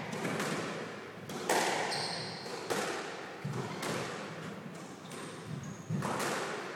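Squash rally: a series of sharp ball strikes off rackets and the court walls, each ringing out in the echoing court, the loudest about a second and a half in and near the end. Short high squeaks of shoes on the wooden floor come in between.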